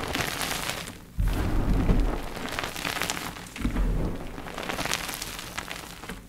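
Dip-dyed gym chalk blocks being crushed, twice: about a second in and again midway, each crush a sudden crunch with a low thump that breaks into a fading crackle of crumbling chalk.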